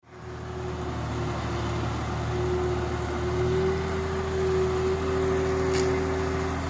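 An engine running steadily: a low drone with a whine that rises slightly and holds, joined by a second, lower whine about five seconds in. The whine stops just before the end.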